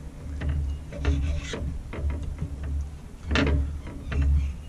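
A knife cutting raw wrasse fillet into nugget-sized pieces on a plate, the blade scraping against the plate in irregular strokes, with dull low knocks.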